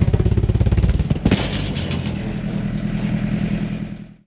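Tractor engine running with a fast, even pulse. A sharp crack comes about a second in, and the sound cuts off abruptly near the end.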